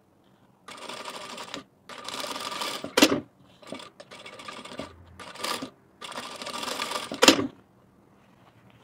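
Industrial lockstitch sewing machine stitching a lining seam in several short bursts of about a second or less, stopping and starting between them. Two of the runs end in a sharp clack, about three seconds in and near the end.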